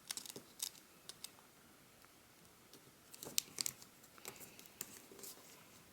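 Origami paper being folded and creased by hand: faint, scattered crinkles and light taps, with a cluster of sharper crackles about three and a half seconds in.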